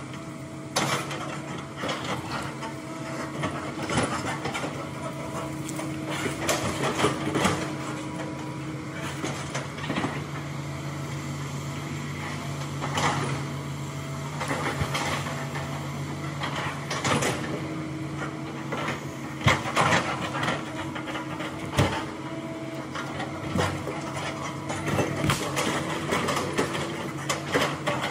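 Hitachi hydraulic excavator's diesel engine running steadily while the machine works. Irregular knocks, clanks and cracks come from the bucket and tracks working through logs, branches and soil.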